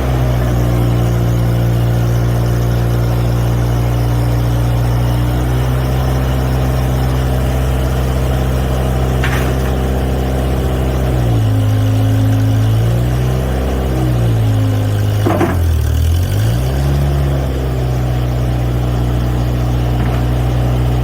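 Mustang 345 skid steer's gas engine running steadily. About halfway through, its speed dips and recovers several times. There are a couple of short clicks.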